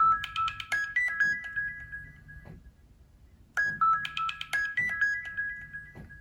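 Nokia C7-00 ringtone: a short electronic melody of a few bright notes, played twice with a pause of about a second between the phrases.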